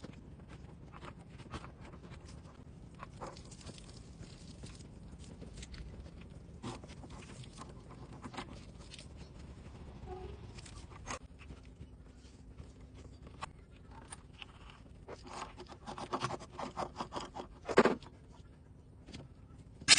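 Quiet work on water heater plumbing fittings: scattered clicks, knocks and scrapes of hands and tools handling a tempering valve and its fittings. The sounds come more often in the last few seconds, with one louder knock near the end.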